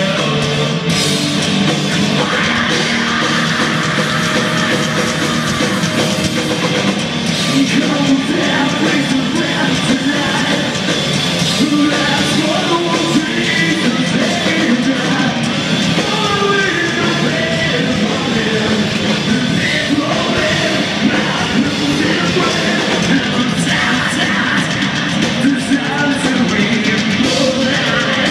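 A live rock band playing loud, continuous music with vocals, heard across a large, mostly empty arena.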